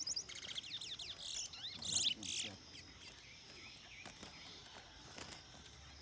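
Caged songbird singing: quick runs of high, sweeping chirps and whistles in the first two and a half seconds, then only faint, scattered chirps.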